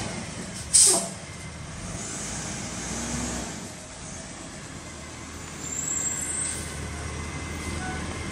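Mack garbage truck's diesel engine running as the truck moves along, with a brief loud hiss of air about a second in.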